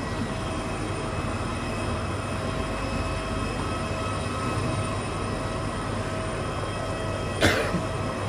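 Steady drone of jet airliner machinery on the apron, with several held whining tones over it. One sharp thump comes near the end.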